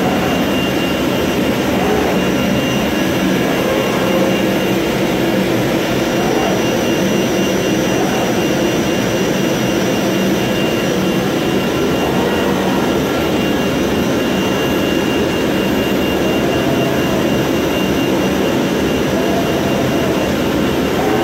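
Flatbed CNC digital cutter running while cutting printed sticker sheets: a steady, even blower noise from its vacuum hold-down table, with faint whines that rise and fall every couple of seconds as the cutting head and gantry move.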